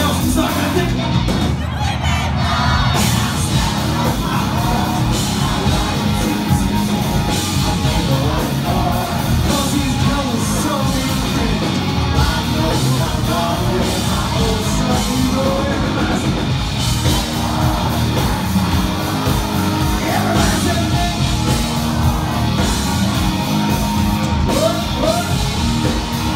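Live country-rock band playing loudly: electric guitar, keyboard and a drum kit keeping a steady beat, with voices singing and shouting over the music.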